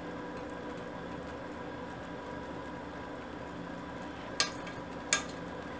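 Fudge mixture at a full boil in a saucepan, bubbling steadily while being stirred with a silicone spatula, over a faint steady hum. Two sharp taps near the end.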